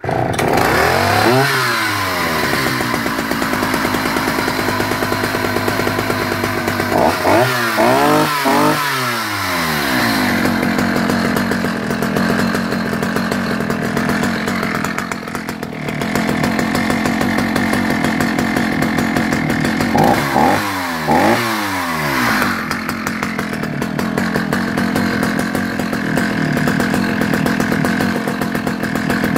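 Vintage Husqvarna 65 two-stroke chainsaw firing up from a cold start and running. It revs up and falls back just after it catches, is blipped about three times around seven to nine seconds in and twice more around twenty seconds in, and runs steadily in between.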